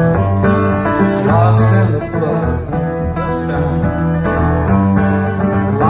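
Live country band playing an instrumental break: guitars strummed and picked over a steady bass line.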